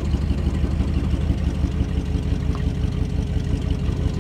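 Big-block V8 of a 1994 Chevy 3500 HD tow truck running steadily with a fast low pulse, while its hydraulic wheel-lift raises a car's front end. A faint steady whine sits above the engine.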